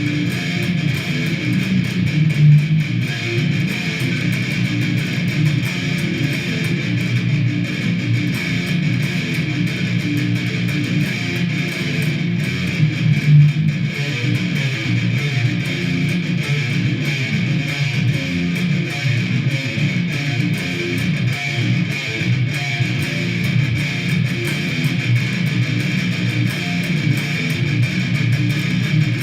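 Guitar music: a song demo played on strummed guitar, steady throughout.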